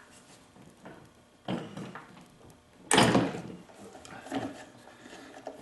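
A stuck bolt on a small two-stroke blower engine being forced loose with a hand tool. There is a knock about one and a half seconds in, then a loud, sharp crack about three seconds in as it breaks free.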